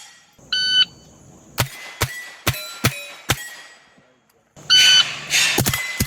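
A shot timer's start beep about half a second in, then five quick .22 rimfire shots, each answered by the ping of a struck steel plate. Another start beep comes near the end, followed by more shots and plate pings.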